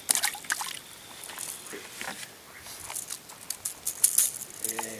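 Irregular splashing and trickling of water at the side of a boat.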